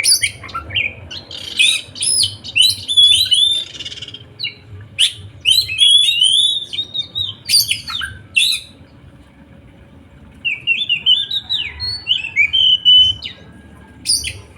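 A songbird singing in rapid, varied chirps and trills, with a pause of about a second and a half past the middle before the song resumes.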